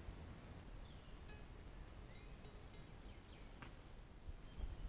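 Faint woodland ambience with small birds chirping now and then, and a few light clicks from handling the trigger stake and cord.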